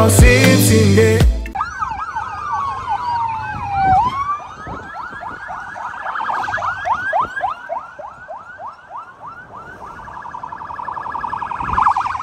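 Several police escort sirens sounding together, their rising-and-falling wails overlapping. One long falling sweep ends about 4 s in, and a fast warble comes near the end. Intro music plays for the first second or so and then cuts off.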